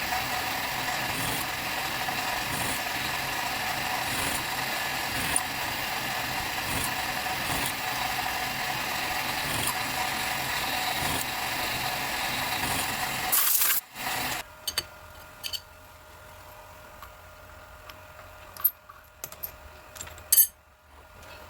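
A small machine tool runs steadily, with a faint regular tick about every second and a half. About two-thirds of the way in it stops with a brief loud clatter. A few sharp clicks and knocks follow, one louder knock near the end.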